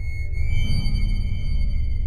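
Ambient synthesizer music: a deep steady bass drone under a high sustained tone, with a brighter chord coming in about half a second in.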